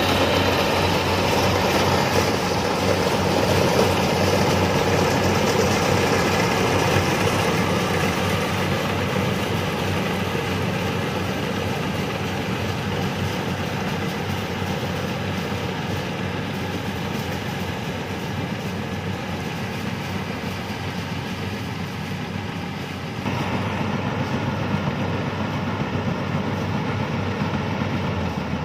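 Yanmar rice combine harvester's diesel engine running steadily under load while it harvests. It grows slowly fainter, then is suddenly louder again about 23 seconds in.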